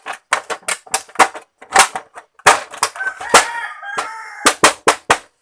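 Irregular sharp clicks and clacks, two or three a second, with a short wavering pitched sound about three seconds in.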